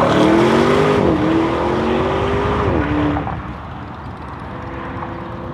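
ABT Audi RSQ8-R's 4.0-litre twin-turbo V8 accelerating hard. The pitch climbs, drops at a gear change about a second in, climbs again and drops at a second upshift near three seconds. The sound then fades as the car pulls away.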